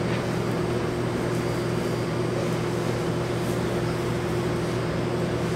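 Steady mechanical hum: a constant low drone with a faint higher tone over an even hiss, with no change in level.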